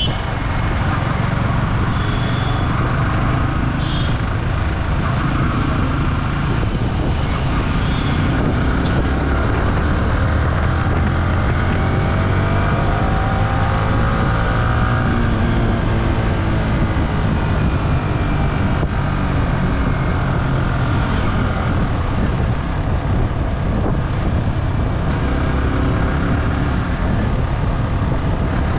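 Yamaha R15's single-cylinder engine running on the move, pulling up to speed in fourth gear and then cruising in fifth, with steady wind rush on the camera.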